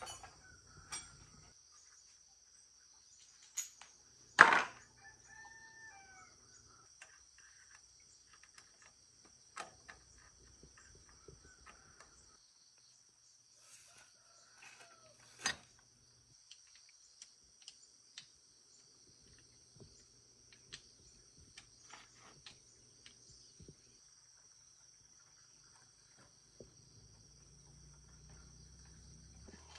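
A steady high insect drone of crickets, with chickens calling a few times in the background. Scattered sharp knocks, the loudest about four and a half seconds in and another about fifteen seconds in.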